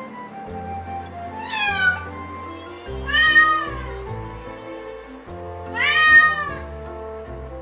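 Domestic cat meowing three times, each meow a pitched call that bends in pitch, over background music.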